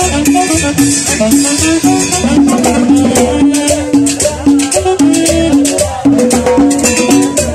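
Loud dance music with a steady beat, a fast shaker rhythm and a repeating figure of short low notes.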